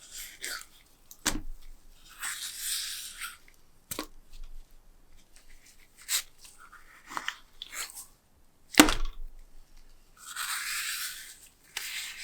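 Hands-on workshop handling noises: several sharp knocks and taps, the loudest about nine seconds in. Two longer rustling scrapes come a couple of seconds in and near the end.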